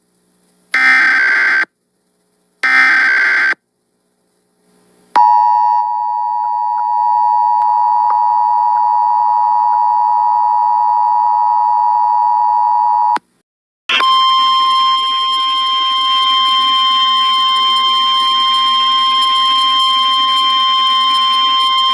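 Emergency Alert System tornado warning signal. First come the last two of three short, harsh SAME data bursts about a second apart. Then the steady two-tone attention signal holds for about eight seconds, and after a brief break a single steady tone sounds for about nine seconds.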